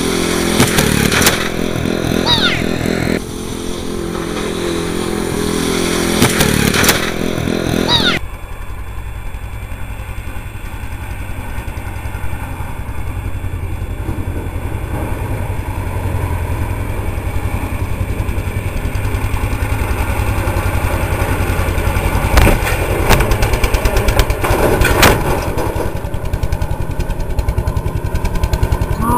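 Old Murray riding lawn mower's small engine running loudly. Its note changes a couple of times in the first eight seconds, then settles into a steadier run that slowly builds.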